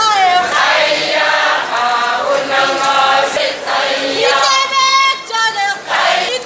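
A group of voices singing a Kalenjin traditional song together in chorus, with long held and swooping sung notes.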